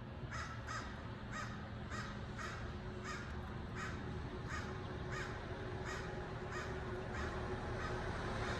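A bird calling over and over, about a dozen short calls at roughly two a second.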